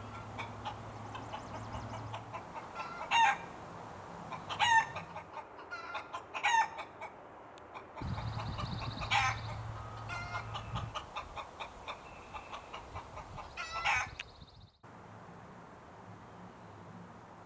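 Chickens clucking, with five loud calls that sweep up in pitch. The sound cuts off abruptly near fifteen seconds, leaving a faint hiss.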